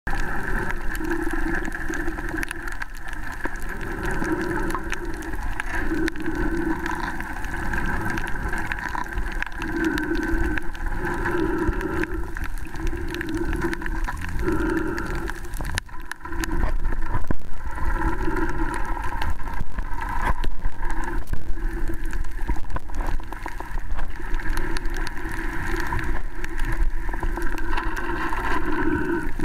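Muffled underwater sound picked up by a camera held beneath the surface: a steady wash of water noise with soft low swells every second or two, a little louder from about halfway through.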